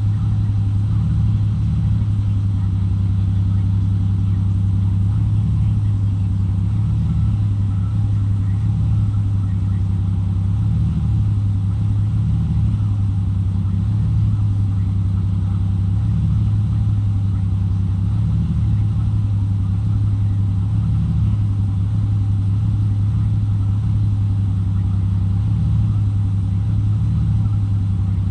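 Toyota Supra engine idling steadily with an uneven pulse coming and going every second or two, which the owner suspects is a misfire.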